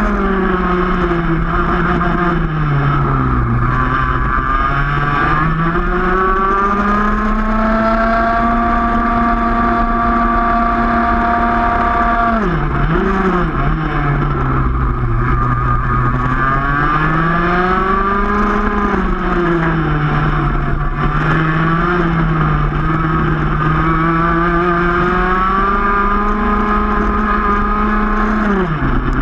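Racing kart's single-cylinder two-stroke engine heard onboard at race pace. Its pitch drops sharply each time the kart brakes into a corner and climbs smoothly back up out of it, with no gear changes, and it holds steady at high revs along a straight in the middle.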